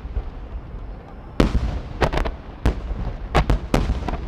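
Aerial firework shells bursting in a rapid volley: about eight sharp booms and cracks from about a second and a half in, some in quick pairs, over a low rumble of echo.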